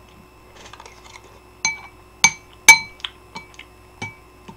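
A metal fork and spoon clinking against ramen bowls while stirring and eating: a quick run of about seven sharp clinks, each ringing briefly, the loudest about halfway through.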